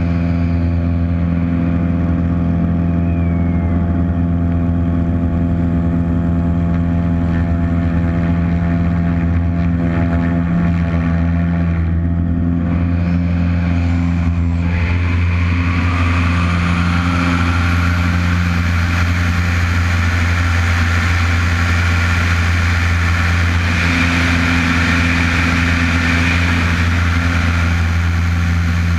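Aerobatic plane's piston engine and propeller running steadily at high power, heard from a camera on the wing, with rushing airflow that grows louder about halfway through.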